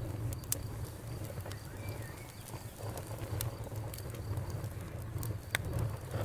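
Wood fire crackling with scattered sharp pops over a steady low rumble. A faint, steady cricket trill runs underneath, and a bird gives a brief chirp about two seconds in.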